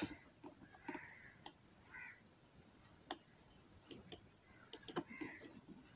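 Near silence with a few faint, unevenly spaced clicks.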